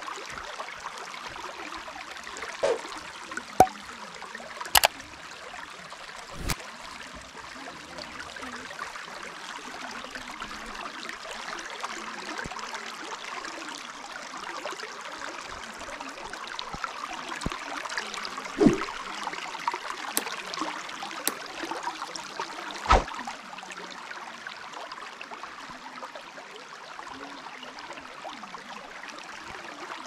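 Shallow forest stream running over rocks, a steady rushing burble of water, with several brief sharp knocks scattered through it.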